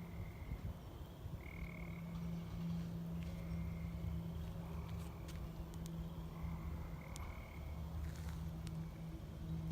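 Frogs calling at night: short, high, evenly pitched notes repeating roughly once a second over a steady low hum, with a few faint clicks in the second half.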